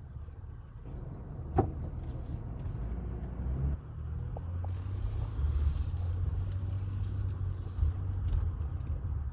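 Car cabin noise while driving: low engine and road rumble that grows as the car pulls away from the intersection and turns, then settles into a steady hum. A single sharp click comes about a second and a half in.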